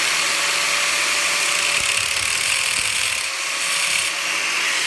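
Angle grinder with a zip cut-off wheel running at full speed, cutting through a copper PEX crimp ring: a steady motor tone under a harsh grinding hiss.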